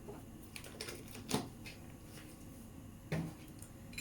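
A few light clicks and knocks of kitchen items being handled, over a faint steady background.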